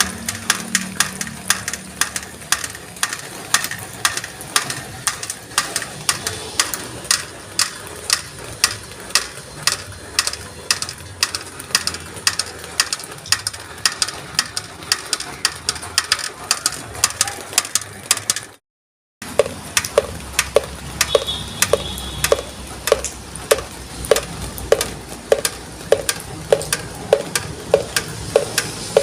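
Rainwater dripping in a steady rhythm, a couple of drops a second, onto hard surfaces over a hiss of falling rain. After a brief cut about two-thirds through, each drip lands with a short ringing note, as of drops striking a vessel.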